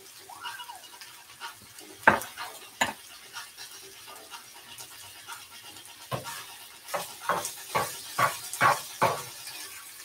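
A spatula stirring a ground beef and potato mixture in a nonstick frying pan over a low sizzle, knocking and scraping against the pan: two sharp knocks about two seconds in, then a quick run of knocks and scrapes over the last four seconds.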